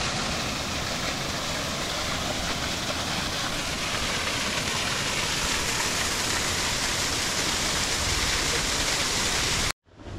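Steady rush of a rain-fed waterfall cascading down a rocky hillside close to the microphone. It cuts off abruptly near the end, and a quieter hiss follows.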